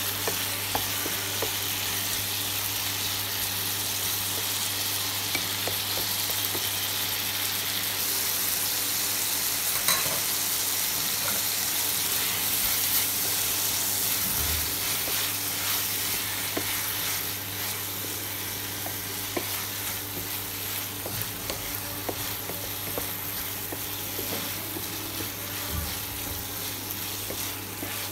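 Chopped onion and tomato sizzling in oil in a non-stick wok, stirred with a wooden spatula that scrapes and taps the pan now and then. A steady low hum runs underneath, and the sizzle eases slightly after about seventeen seconds.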